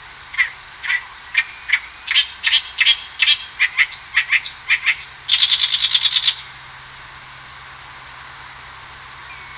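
A wild bird singing: a series of short, high, clear notes at about two to three a second, ending around six seconds in with a fast, dense trill lasting about a second. After that only faint steady background hiss remains.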